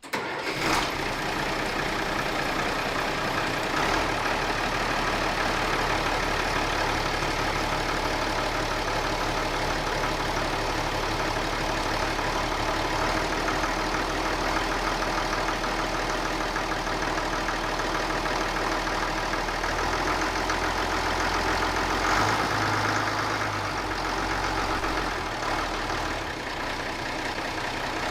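Diesel engine of a piece of digging equipment running steadily, with a shift in its low tone about three quarters of the way through.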